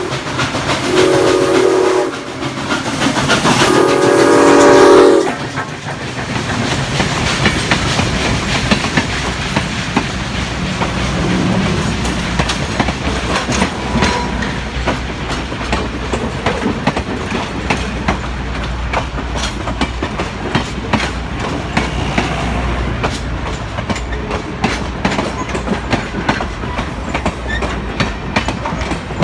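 Steam locomotive #7470 sounding its chime whistle at a whistle post, the usual warning for a grade crossing ahead: a short blast, then a longer, loud one. The locomotive then passes and its passenger coaches roll by, wheels clicking over the rail joints in a steady clickety-clack over a low rumble.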